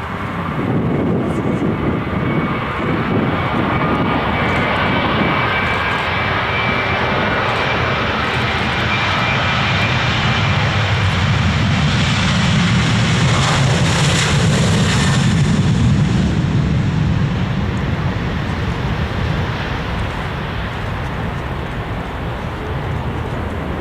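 Airliner engines passing close by, with a whine over a deep rumble. The sound builds to its loudest a little past the middle, then fades away.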